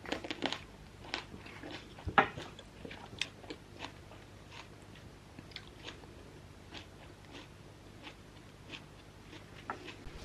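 Crunchy biting and chewing close to the microphone: a run of short, irregular crunches and clicks, thickest in the first few seconds with the loudest about two seconds in, then sparser, over a faint steady low hum.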